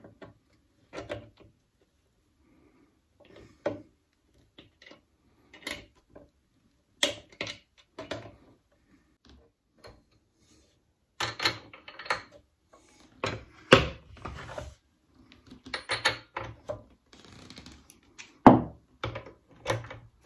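Hand tools clicking and clunking on the metal of a Suffolk Super Colt lawnmower engine as it is taken apart with pliers and a socket wrench. The knocks and rattles come irregularly, sparse at first and in denser clusters in the second half.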